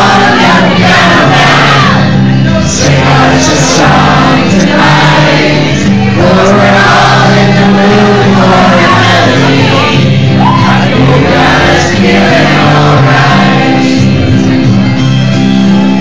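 A singer's voice through a microphone over loud backing music, the melody moving over steady sustained low notes.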